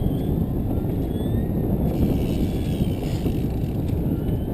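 Steady low rumble of a trolling fishing boat under way, its motor and hull noise mixed with wind on the microphone.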